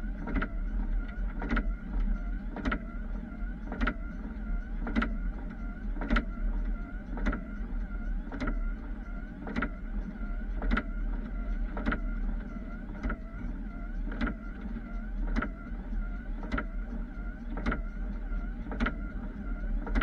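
Plow truck's windshield wiper motor whining, with a knock about every second as the blades sweep, over the low drone of the truck in the cab.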